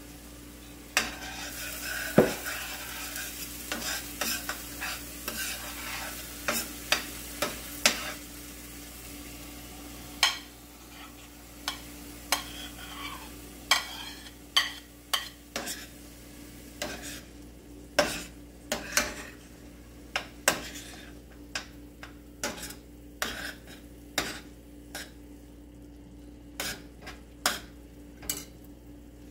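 A metal spoon stirs and scrapes in a stainless steel skillet, clinking sharply against the pan many times, over the sizzle of blended garlic and onion frying in oil. The sizzle is strongest in the first several seconds.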